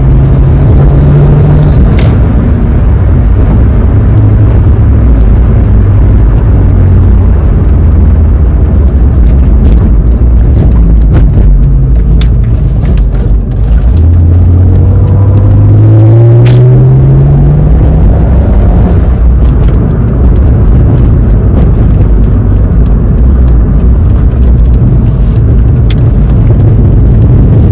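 BMW N55 turbocharged inline-six in an E46 running while the car is driven, heard from inside the cabin. About halfway through the engine note climbs steadily under acceleration for a few seconds, then drops back, and it rises again near the end.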